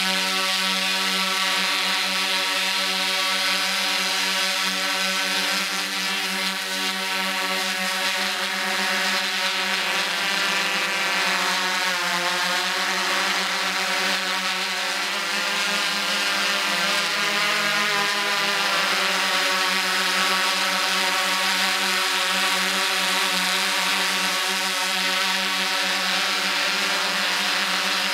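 Quadcopter drone's motors and propellers whining steadily, the pitch wavering for a while in the middle as it manoeuvres.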